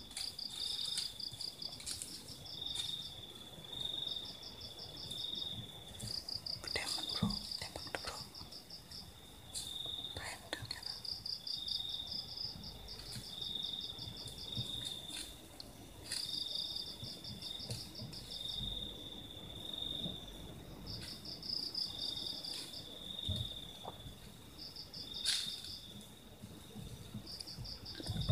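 Night insects calling in chorus. One gives a rapid pulsing trill in bouts of a second or two. Another gives short high notes about once a second. A few faint clicks are heard.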